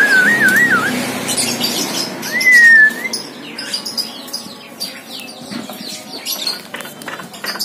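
Javan myna whistling and chattering. A short wavering whistle comes at the start, then a louder sliding whistle about two and a half seconds in, followed by a run of short clicking, chattering notes.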